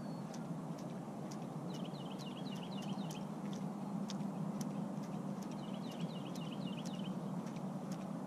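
A songbird repeating a short phrase of quick high chirps about every three and a half seconds, over a steady low background rush. A few faint sharp ticks are scattered through it.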